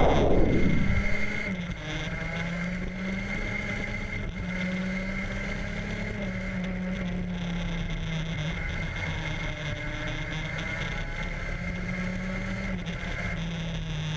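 Engine of a vehicle lapping a racetrack, recorded onboard: a steady engine note that rises and falls only a little, with road and wind noise. Background music fades out in the first second or so.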